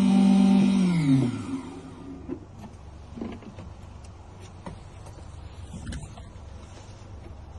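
Key-cutting machine's motor running steadily, then switched off about a second in, its hum falling in pitch as it spins down. After that, only a few faint clicks and taps.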